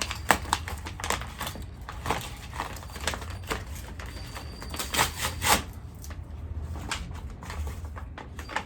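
Hands tearing open a taped parcel without scissors: irregular crinkling, ripping and peeling of tape and packaging, with the sharpest snaps just after the start and about five and five and a half seconds in.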